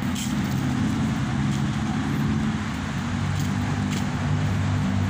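Street traffic noise with a steady low hum from a running motor vehicle engine.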